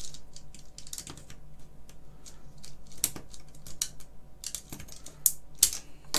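Irregular small plastic clicks and taps of computer keyboard keys being pressed and pried at with a small tool, trying to lift the keycaps off. A few sharper, louder clicks come about three seconds in and twice near the end.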